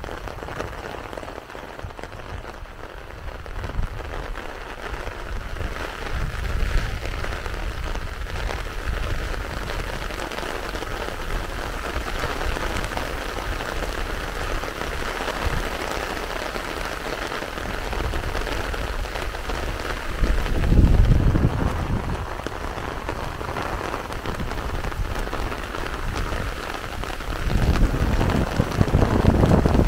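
Heavy rain falling steadily. Two louder low rumbles come through, about twenty seconds in and again near the end.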